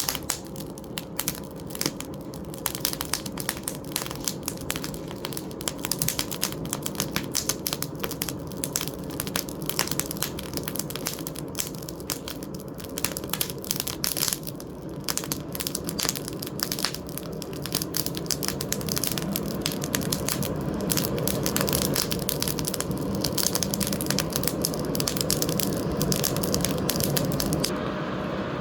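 Forge fire crackling with dense, irregular snaps over a steady blower roar. The crackling stops near the end, leaving only the steady roar.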